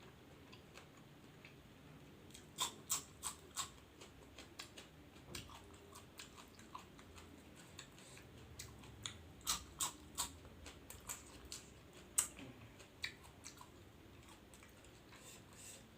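Close-up mukbang chewing of squid and raw vegetables dipped in sambal, with wet chewing and sharp crisp crunches that come in clusters.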